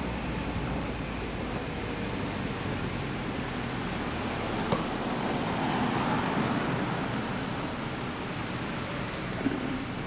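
Steady road and wind noise of a vehicle driving along a narrow mountain road, with a couple of faint clicks.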